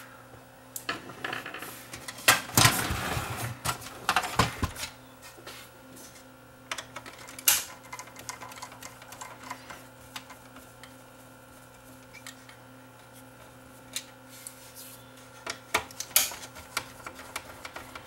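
Scattered clicks, knocks and a scraping rattle of plastic parts and a screwdriver as the cassette mechanism of a Sony TC-WE435 double cassette deck is worked loose, over a faint steady hum.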